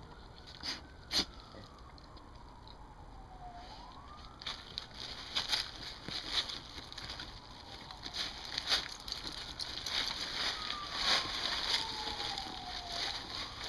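Dogs digging in loose garden soil, their claws scratching the dirt in quick, busy strokes that thicken after about four seconds, with a couple of sharp clicks about a second in. A siren wails faintly, rising and falling slowly.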